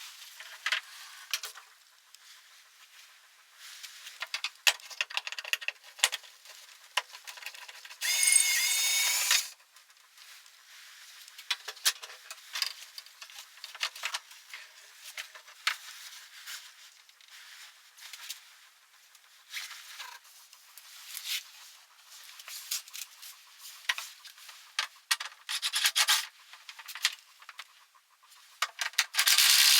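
Workshop handling noises: scattered clicks, taps and rubbing of tools and parts, with a louder pitched whirring burst about eight seconds in and another near the end.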